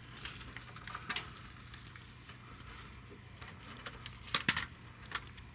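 Faint, irregular clicks and taps of hand tools and loosened fasteners being handled under the car, with a few sharper clicks about four and a half seconds in, over a low steady hum.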